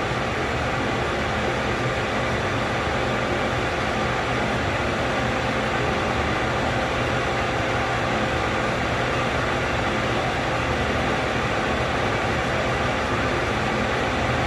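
Steady, unbroken whooshing of a running machine such as a fan or blower, with a faint steady hum.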